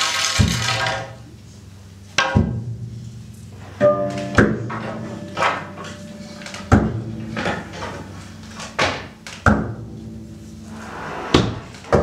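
Free-improvised ensemble playing: irregular sharp percussion strikes about every second or two over sustained low pitched tones, with a brief noisy cymbal-like wash at the start.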